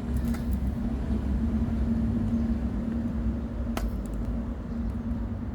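Electric outrigger jack motor on a camper running with a steady hum and a low rumble.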